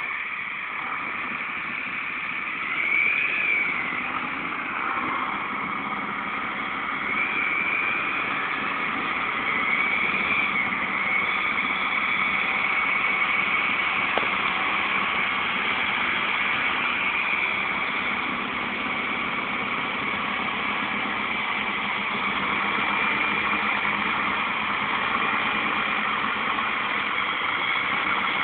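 Diesel farm tractor engines running as the tractors drive over ploughed ground. The revs rise and fall briefly a few times in the first ten seconds, then hold steady.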